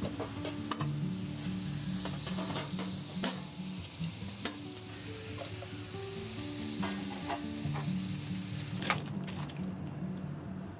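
Thin-sliced beef brisket sizzling and frying in a hot pan on a camp burner, with scattered clicks of metal tongs and utensils against the pan; the sizzle drops away near the end. Soft background music with a simple melody plays underneath.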